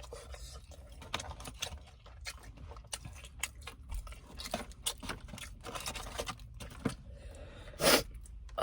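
Close-miked eating of crispy Korean fried chicken: irregular crunching, mouth clicks and wet chewing, with one louder, short rush of noise near the end.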